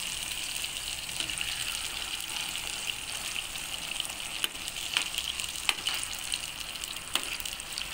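Spice-marinated chicken pieces deep-frying in a wok of hot oil: a steady sizzle with a few sharp pops.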